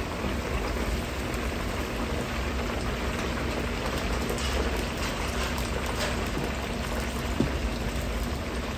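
Battered chicken pieces deep-frying in a wok full of hot oil: a steady crackling sizzle and bubbling, with a low steady hum underneath and a light knock near the end.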